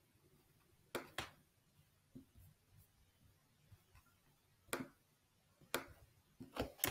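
A few sharp, faint computer mouse clicks spaced a second or more apart, made while selecting lines of code, with a quicker run of clicks near the end.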